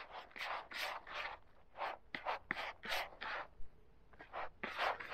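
Feeder groundbait mixed with maize and pellets being stirred and scraped, a run of short rustling scrapes about three a second, with a brief pause about three and a half seconds in.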